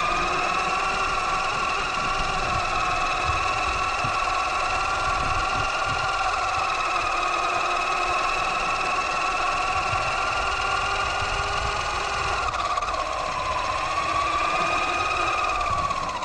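Axial Yeti XL RC truck's electric motor and drivetrain whining steadily as it drives, the pitch drifting with throttle and dipping a little near the end, over the rumble of the tyres on the road.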